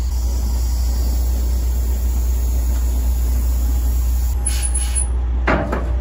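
Peterbilt 389 glider's diesel engine running with a steady low rumble, heard from inside the cab while the empty truck drives. Near the end there is a brief high hiss and a few short, sharper sounds.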